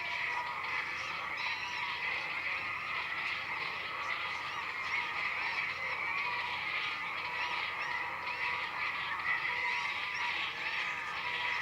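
A dense chorus of many animals calling at once, short overlapping calls in a steady, unbroken din.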